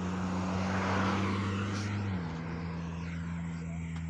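A motor vehicle passing close by on the road: rushing tyre noise swells and fades, over a steady engine drone that drops slightly in pitch a little over two seconds in as it goes past.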